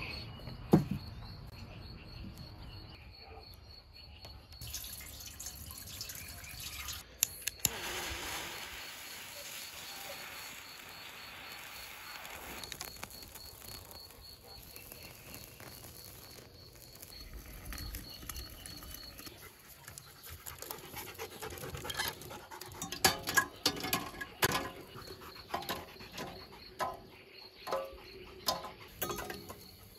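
Crickets chirping in an even pulse, with scattered clinks and knocks of a stainless samovar's metal parts being handled and fitted together, most of them in the last third.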